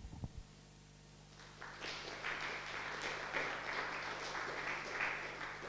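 Audience applauding. The clapping starts about a second and a half in, holds steady, and tapers off near the end.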